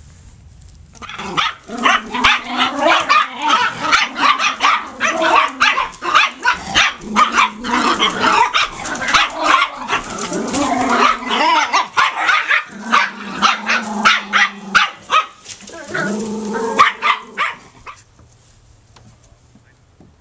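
Puppies yapping and barking in quick succession, starting about a second in and stopping near the end.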